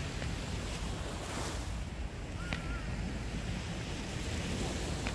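Wind buffeting the microphone over steady surf on the shore, with a faint click about two and a half seconds in.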